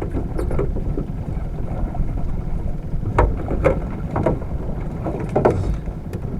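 Steady low rumble of wind and water on a small fishing boat, with a few short, sharp knocks or splashes a little past the middle.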